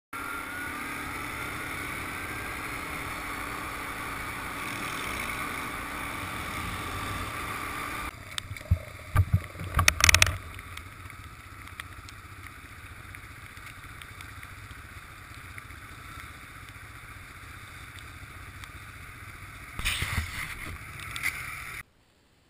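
Quad bike (ATV) engine running on the move over dirt tracks, with wind and road noise; its pitch rises about a second in. A cluster of loud knocks and bumps comes about eight to ten seconds in, more knocks about twenty seconds in, and the sound cuts off abruptly near the end.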